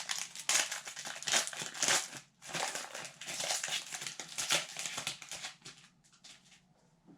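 Hockey card pack wrapper being crinkled and torn open by hand: a dense run of irregular crackles that dies down a little before the end.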